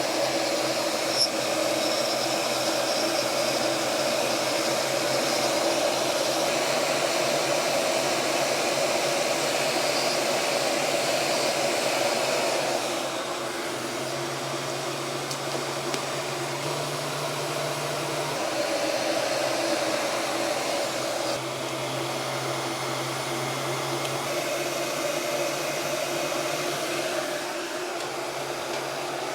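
Electric heat gun running, a steady blowing rush with a low motor hum; it drops a little in level about halfway through.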